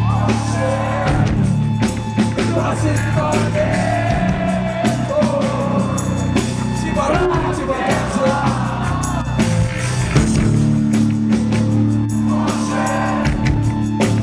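Live rock band playing, with a singer's voice over a steady bass line and drums, heard loud in a large room.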